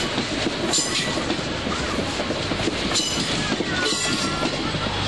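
RENFE Cercanías electric multiple unit passing close by, a steady rumble and rush of wheels on rail, with a few short high-pitched squeaks about a second in and again near three and four seconds.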